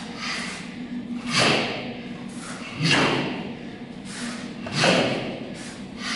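Three heavy thumps of feet stamping on foam floor mats during a Bajiquan form, about one and a half to two seconds apart.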